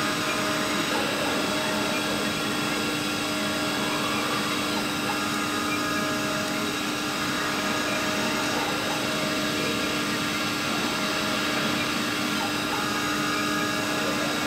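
Mini 5-axis CNC milling machine running, a steady motor hum with several held whining tones, some fading in and out as the axes move.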